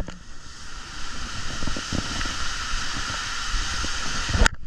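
Rushing water and wind on the microphone as a raft tube slides down an enclosed water slide, with one sharp knock near the end.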